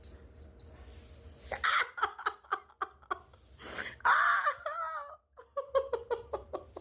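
A woman laughing in quick, breathy bursts, with a wavering squeal in the middle, while a cat bites her.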